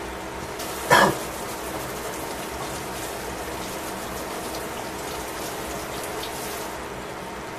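Stir-fried vegetables and sauce sizzling and bubbling in a stainless steel pan, with a sharp louder burst about a second in. A steady low hum runs underneath.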